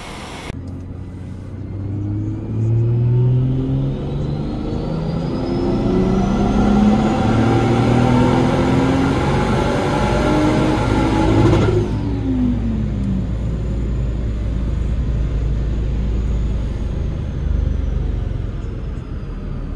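Turbocharged Toyota 2JZ-GE straight-six in a Lexus IS300 pulling on a chassis dyno, heard from inside the cabin. The revs climb in steps with a high whine rising above the engine. About twelve seconds in the throttle closes, and the revs and whine fall away slowly as the rollers coast down over a low rumble.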